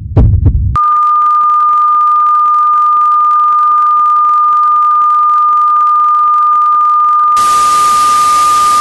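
Sound-effect track: a low heartbeat-like thump, then a steady high electronic beep tone held unbroken. About seven seconds in, loud TV static hiss joins the tone.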